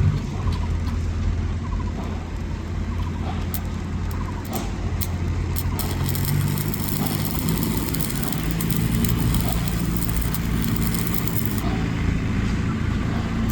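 A motor vehicle running steadily with a low, even engine hum, and a few light clicks in the first half.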